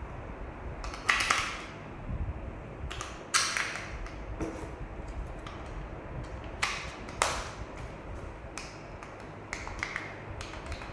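Irregular sharp clicks, taps and short scrapes from a plastic RC toy dump truck being handled, with a steady low rumble underneath. The loudest knocks come about a second in, at about three seconds, and near seven seconds.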